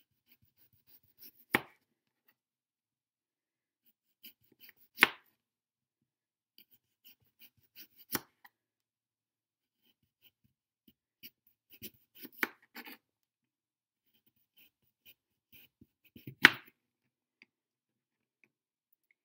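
Kitchen knife slicing a raw sweet potato thin on a plastic cutting board: a sharp knock each time the blade cuts through and hits the board, about six in all a few seconds apart, the loudest near the end, with faint small ticks between.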